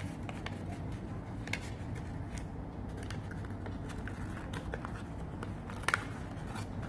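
Origami paper being folded and handled: scattered soft crinkles and crease sounds, with a sharper pair of clicks about six seconds in, over a steady low hum.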